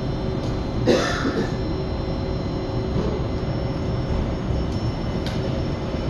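Steady low rumble and hum inside an old Astra IVA metro car, with one sharp clunk about a second in.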